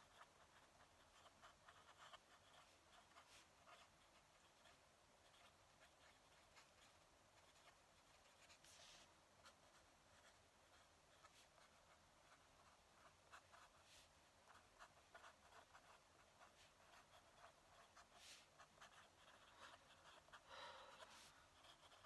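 Faint fountain pen nib scratching across paper as a line of handwriting is written: a steady run of small scratches and ticks. A brief, slightly louder sound comes near the end.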